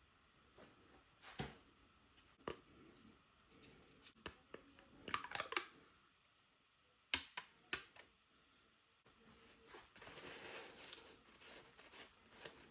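Small clicks, taps and short scrapes of hand tools and parts being handled during a phone screen and back-glass repair, with a longer stretch of scraping or rubbing near the end.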